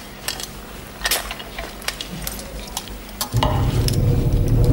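Light clinks and scrapes of a plate and cutlery as a serving of spaghetti is handled. About three and a half seconds in, a loud low hum comes in and is the loudest sound.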